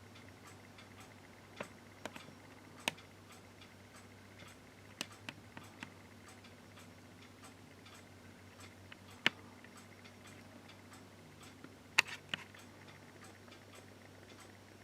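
Faint, regular ticking about twice a second, with a handful of louder sharp clicks scattered through, over a low steady hum.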